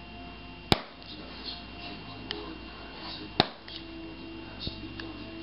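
Two small latex balloons popping, about two and a half seconds apart, each burst by a high-powered green laser beam.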